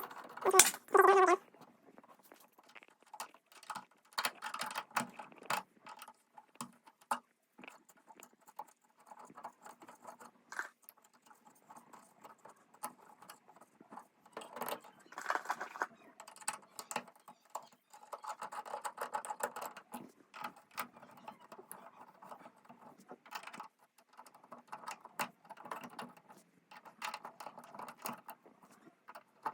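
The two mounting screws of a wall light switch being turned out with a screwdriver: scattered small scrapes, clicks and taps of metal on metal, stopping and starting.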